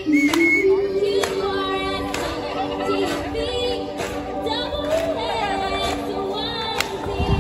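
Several voices singing together in long held notes, with a sharp beat about once a second.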